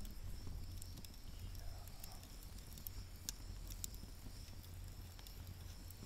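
Wood fire crackling in a campfire stand: scattered sharp pops at irregular moments over a low steady rumble.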